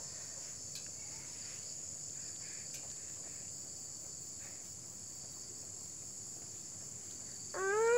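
Steady, high-pitched chorus of crickets or similar insects; no engine is running. Near the end a pitched voice-like hum starts, rising slightly.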